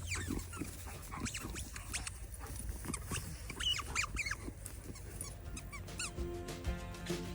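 Squeaky toy ball squeaked over and over in a dog's mouth: short, high, arching squeaks with chewing clicks, fairly quick and irregular. Background music comes back in about six seconds in.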